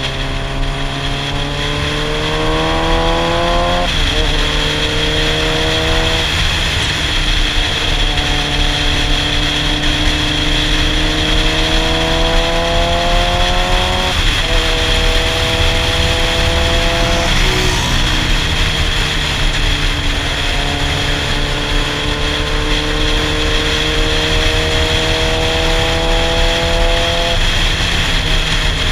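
Sportbike engine from the rider's seat, pulling up through the revs and dropping sharply at gear changes: one about four seconds in, another about fourteen seconds in, then a long climb again in the second half. Steady wind rush over the helmet-mounted camera runs underneath.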